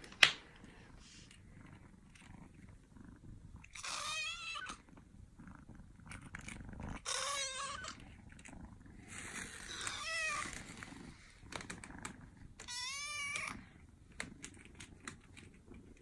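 A kitten meowing four times, roughly three seconds apart, each call wavering in pitch. A sharp knock comes just at the start.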